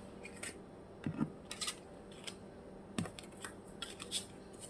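A deck of tarot cards being shuffled and handled by hand: a scatter of light, irregular clicks and snaps of card against card.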